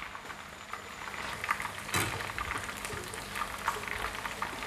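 Battered shrimp deep-frying in hot oil: a steady crackling sizzle with many small pops, thickening about a second in. A sharp click about two seconds in.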